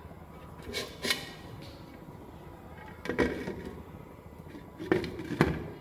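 Glass cooking-pot lid knocking and clinking against the rim of a pot as it is set on and adjusted: about five short knocks, the loudest about three seconds in and just before the end.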